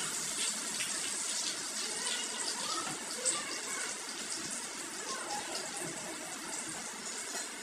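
Food frying in a pan on a gas stove, a steady sizzle with the light scrape and clink of a metal spatula against the pan, one sharper clink about three seconds in.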